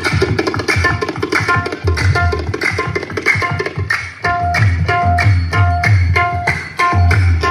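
Music with a dense drum beat, heavy bass pulses and short repeated melody notes, played loud through a pair of dual 12-inch PA speakers driven by an ATI Pro ATI350FX 350 W amplifier.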